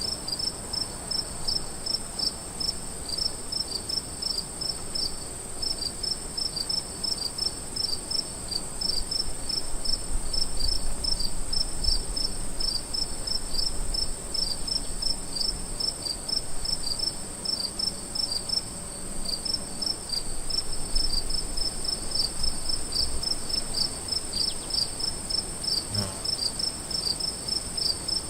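Crickets chirping: a steady run of short, evenly spaced chirps over a continuous high-pitched trill.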